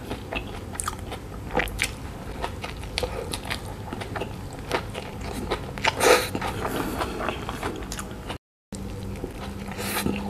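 Close-miked eating of a Malaysian street burger: biting into the soft bun and filling and chewing with wet mouth clicks and smacks, with a louder bite about six seconds in. The sound cuts out for a moment near the end.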